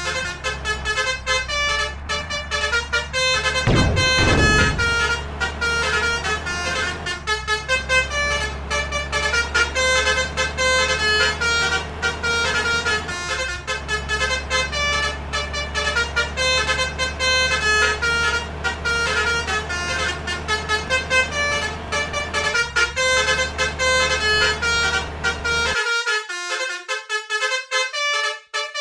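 Indonesian 'telolet' basuri bus horns, a set of multi-tone musical air horns, playing a rapid melody of short notes. Under it runs a steady low rumble that cuts out near the end.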